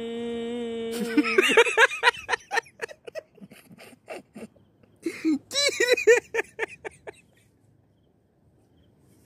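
A man's long held sung note breaks off about a second and a half in, giving way to bursts of laughter.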